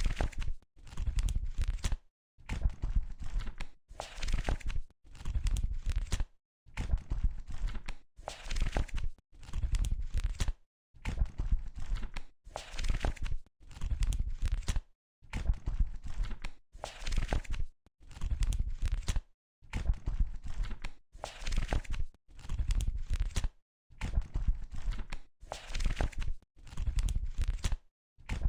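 Book pages being turned one after another, about once a second: each page gives a papery rustle and flap, with a short gap of dead silence between turns.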